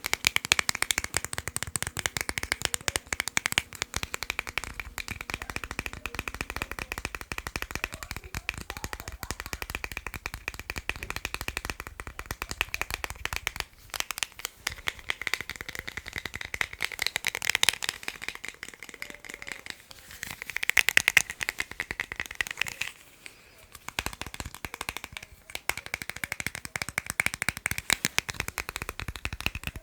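Fast tapping on small items, a dense, unbroken run of quick taps that stops briefly a little past two-thirds of the way through, then resumes.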